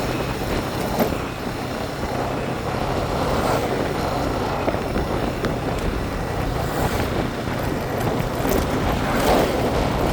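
Steady road-vehicle noise, engine rumble and road noise, typical of riding a motorbike.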